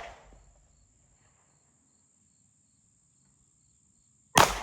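Gun target shooting: the echo of a shot fades over the first second, then another sharp gunshot comes near the end, aimed low at a paper target. A steady high insect whine, like crickets, runs underneath.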